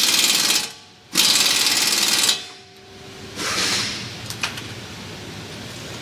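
Impact wrench hammering in bursts of about a second each, then a shorter, softer burst about three and a half seconds in, working the front hub bearing's bolts.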